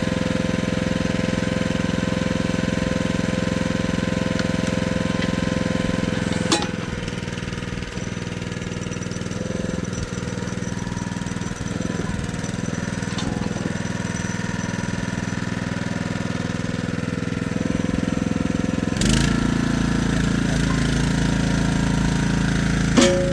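Jansen mini excavator's engine running steadily. A sharp click about six seconds in, after which the sound drops a little, and a clunk about nineteen seconds in, after which a deeper, heavier note comes in; another click near the end.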